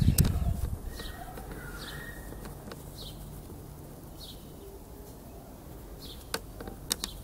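A bird calling repeatedly with short, high, falling chirps about once a second. Handling noise from the wooden frame of a Fresnel lens solar cooker being gripped and tilted: a rustling thump at the start, the loudest sound, and a few sharp knocks near the end.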